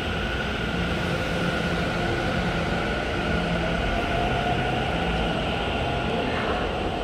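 Taichung Metro Green Line driverless EMU pulling out of the station and accelerating away, a steady rail running noise with a motor whine that rises slightly in pitch as it gathers speed.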